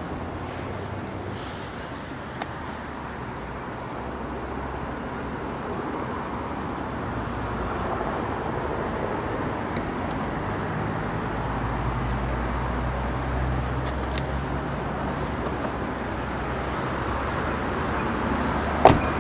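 Steady outdoor traffic noise with a low vehicle hum that swells in the middle and eases off. A car door shuts once near the end.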